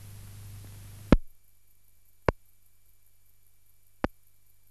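No recorded sound, only playback noise from a silent film transfer. A steady electrical hum with hiss cuts off with a sharp click about a second in, and two more sharp clicks follow over a fainter hum.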